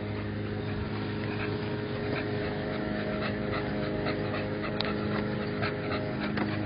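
A leashed dog moving over asphalt, heard as scattered light clicks and scuffs over a steady low hum.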